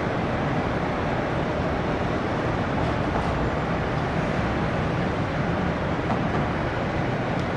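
Steady jet aircraft engine noise, an even rushing sound with no distinct tone that holds at one level.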